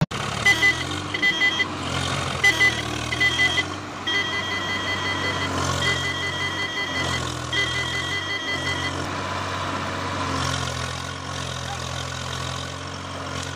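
A vehicle engine running steadily with an electronic beeping over it: short double beeps at first, then longer beeps about a second long, which stop about nine seconds in.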